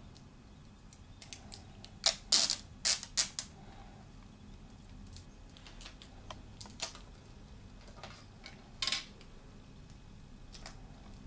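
Handling clicks and taps from an iPod touch and its small plastic fittings being worked in gloved hands. A quick run of sharp clicks comes about two seconds in, a few scattered ticks follow, and there is a brief rustle near the end.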